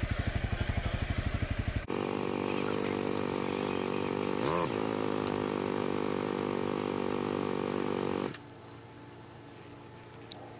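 Dual-sport motorcycle's single-cylinder engine idling with an even pulsing beat, then after an abrupt change running steadily at constant speed. A little over 8 seconds in it drops suddenly to a quieter steady sound.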